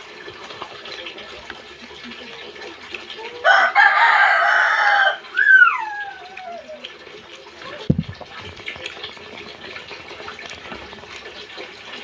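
A rooster crowing once, about three and a half seconds in: a loud held call that ends in a long falling note.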